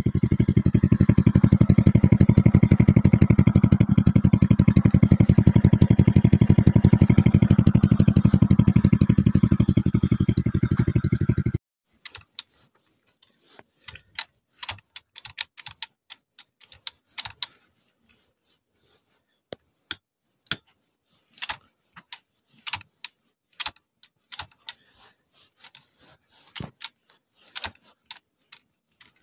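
Pit bike's single-cylinder engine running steadily at a fast even putter, stopping abruptly about twelve seconds in. Scattered sharp clicks and taps at irregular intervals follow.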